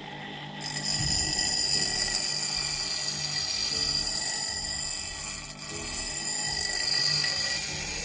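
Iron knuckles pressed against a spinning bench buffing wheel, giving a steady, high-pitched ringing whine that starts under a second in.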